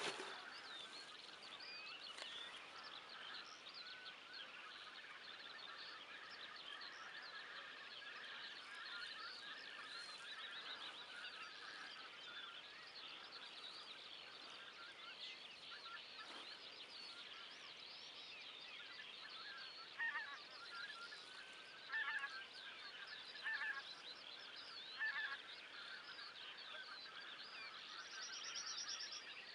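A large flock of geese calling continuously, many overlapping honks and cackles, with a few louder calls standing out about two-thirds of the way through.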